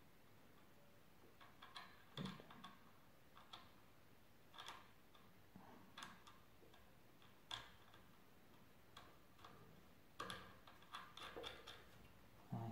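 Faint, irregular metallic clicks and taps from the gears beside the clutch of a Derbi Senda engine's open crankcase being turned and handled by hand, with a slightly louder knock at the end.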